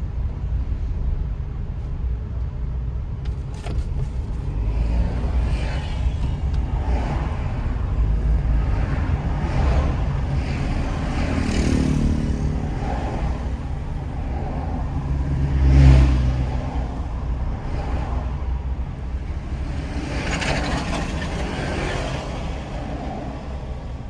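A moving car on a city road: steady engine and tyre rumble, with other traffic passing and one louder swell about sixteen seconds in.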